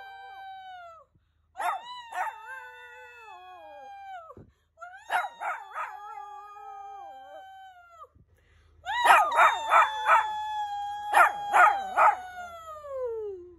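Shih Tzu howling: a run of long, high howls, each starting with sharp yelping breaks and sliding slowly down in pitch. The last is the loudest and longest, broken by quick yips, and falls away sharply at the close.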